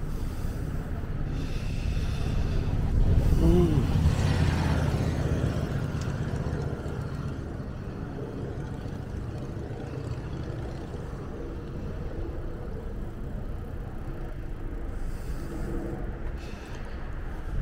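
Road traffic and low wind rumble heard while cycling along a city road, with a louder passing vehicle about three to five seconds in.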